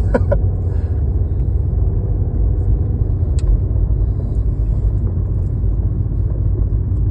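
Steady low rumble of a car, heard from inside, with no change in pitch or level.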